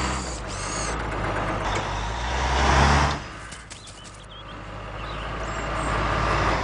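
Vehicle engine sound effects: a loud low engine rumble that drops away suddenly about three seconds in, followed by engine noise that swells steadily.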